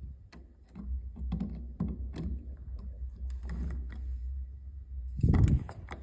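Scattered small metallic clicks and ticks as a screwdriver works the screws of a doorknob's mounting plate to tighten the loose knob, with a louder low thump about five seconds in.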